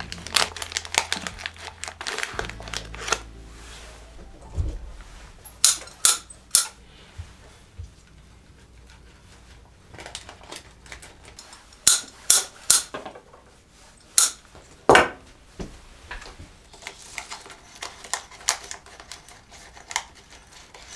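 Irregular sharp clicks and clinks from objects being handled on a work surface. Among them are two groups of three quick strokes and a few single loud knocks.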